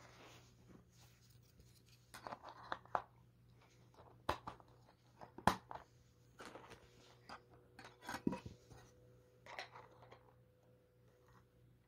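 Plastic toy-building parts being handled: scattered clicks and taps of hard plastic pieces against each other, with short rustles of plastic packaging.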